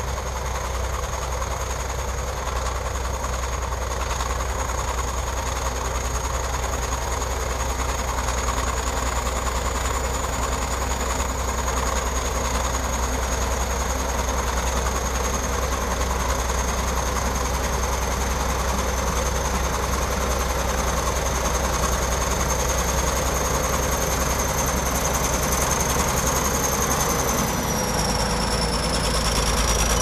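Shantui SD22 crawler bulldozer's diesel engine running steadily under load as the dozer pushes a pile of soil with its blade. A thin, steady high whine runs over it and dips briefly in pitch near the end.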